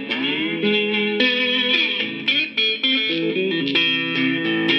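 Electric cigar box guitar played through a small amplifier: a run of plucked notes and short riffs, with a note sliding in pitch right at the start.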